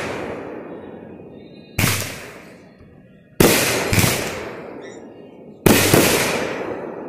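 Aerial firework bursts overhead: five loud booms, each trailing off in a long echoing decay, with two of them coming in quick pairs near the middle and near the end.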